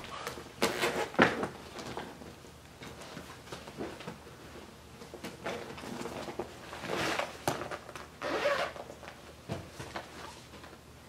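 Several short rasping swishes of something being handled close to the microphone. They come in clusters: the loudest about a second in, then two more near the end.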